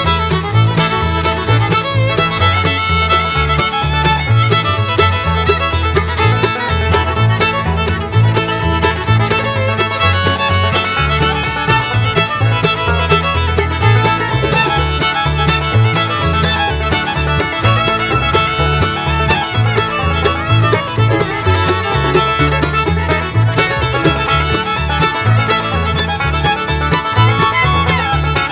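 Background music: an upbeat fiddle-led bluegrass-style tune with banjo and guitar over a steady bass beat.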